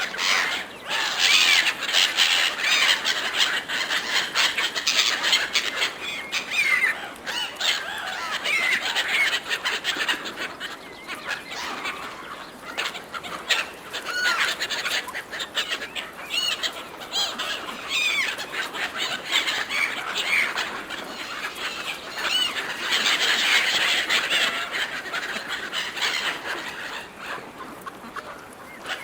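A flock of gulls calling all at once while squabbling over food, with many short overlapping squealing calls and brief clicks throughout. The calling is busiest near the start and again towards the end.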